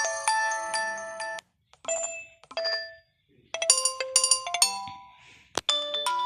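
Nokia 2.1 phone ringtones playing one after another: short electronic melodies of a second or so each, with brief gaps between them. A new tone starts near the end.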